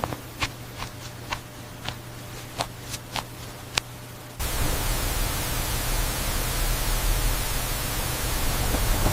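Faint hiss with a low hum and a scatter of sharp, irregular clicks. About four seconds in, a louder, steady static hiss cuts in abruptly and takes over.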